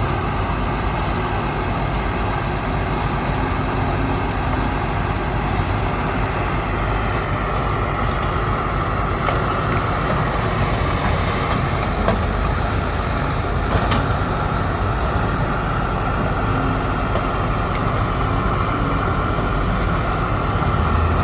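Diesel engine of a backhoe loader running steadily while it digs and loads mud, with a brief sharp click about two-thirds of the way through.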